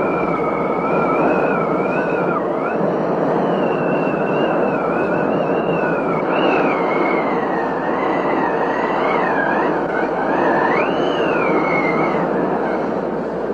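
Heavy thunderstorm rain pouring steadily, with a thin high whistle that wavers slowly up and down in pitch over it.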